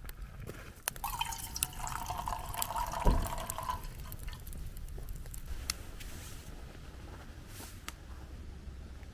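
Liquid being poured for about three seconds, over scattered sharp crackles from a campfire.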